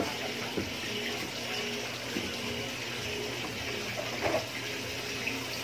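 Steady rushing sound of running water, with a few dull knocks about two seconds apart.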